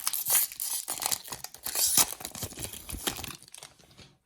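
Plastic trading-card pack wrapper being torn open and crinkled in the hands, a dense crackling rustle that fades out near the end.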